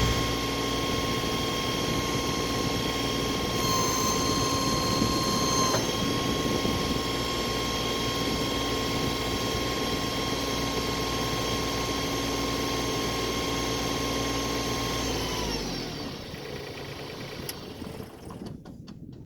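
Tractor engine running steadily with a whine, the pitch stepping up for a couple of seconds near the start. About three-quarters of the way through, the engine winds down and stops.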